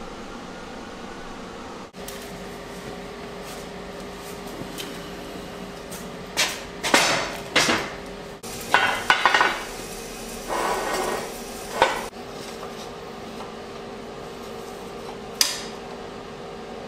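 Steel square tubing clanking and rattling against a steel welding table: a cluster of sharp metal knocks and clatter in the middle, then one more clank near the end, over a steady hum.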